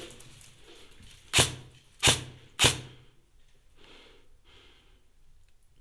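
Three sharp single shots from an upgraded Ares Amoeba 009 airsoft electric gun (steel piston, high-torque motor, 11.1 V lipo), each with a short low thump, about two-thirds of a second apart, starting about a second and a half in.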